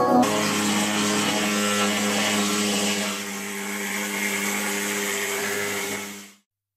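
Pneumatic needle gun descaling rust from steel: a loud, steady mechanical buzz at a constant pitch that cuts off suddenly about six seconds in.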